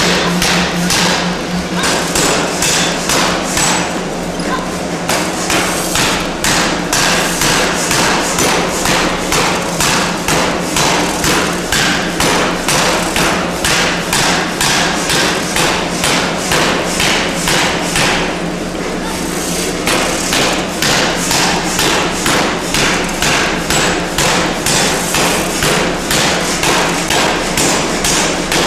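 Power forging hammer striking a hot steel billet in a steady run of blows, about two a second, over a continuous low machine hum. The blows slacken briefly twice, near the start and about two-thirds through.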